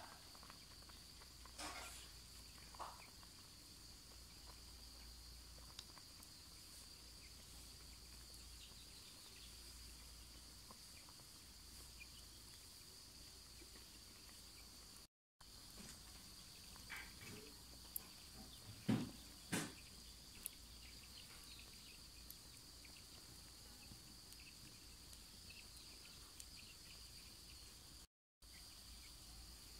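Faint, steady high-pitched chirring of insects such as crickets, with a few soft knocks about two-thirds of the way through.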